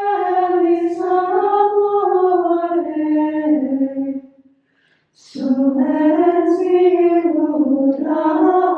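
A small choir of women singing Gregorian chant in unison: two long, slowly moving phrases with a short breath break about halfway through.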